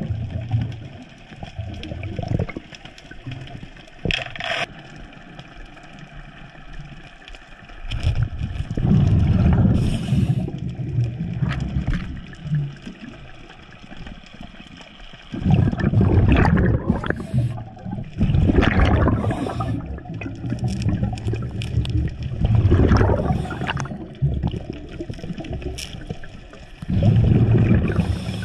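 Muffled water noise picked up by a camera underwater: a low gurgling rush that surges loud several times between quieter stretches, with a few faint clicks.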